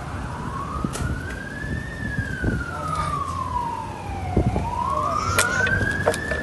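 A siren wailing, its pitch rising and falling slowly, about one full swing every four seconds. Some short knocks and a low rumble sound under it.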